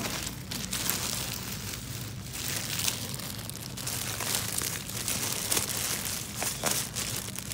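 Plastic-wrapped multi-packs of toilet paper rustling and crinkling as they are shifted and stacked on a shelf, in irregular handling noises, over a steady low hum.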